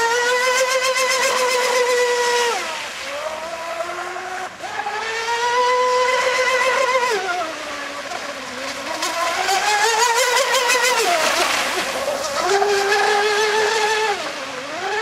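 Electric RC speedboat running on a 6S LiPo pack: a high-pitched motor and propeller whine that climbs, holds with a slight warble, and drops about four times as the boat accelerates and eases off, over the hiss of its spray.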